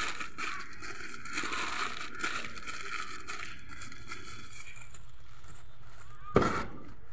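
Paper crinkling and rustling as it is crumpled and stuffed into the end of a PVC electrical conduit pipe. A single sharp knock near the end.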